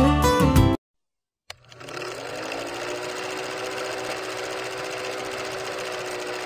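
Film projector sound effect under an old film-leader countdown: a steady mechanical whirr and rattle that starts with a click after a moment of silence and builds up over about a second.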